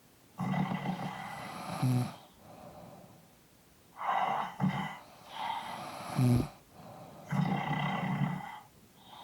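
Two sleeping people snoring. There are four loud snores, about two to three seconds apart, some ending in a short snort, with quiet breathing between them.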